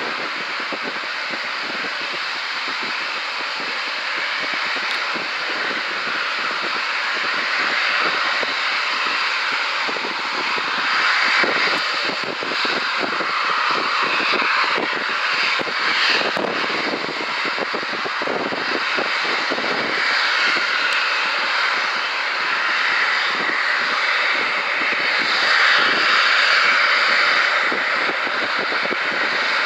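Boeing 777-300ER's twin GE90 turbofan engines at take-off thrust as the airliner lifts off and climbs away: a continuous jet roar that swells and eases slowly.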